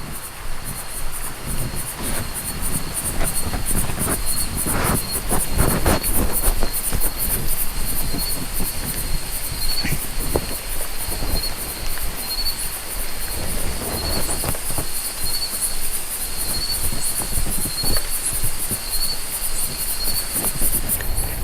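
Night insects such as crickets trilling in a high steady buzz, with another insect chirping in short regular pulses about once a second. Under them runs a low rumbling noise with occasional soft knocks.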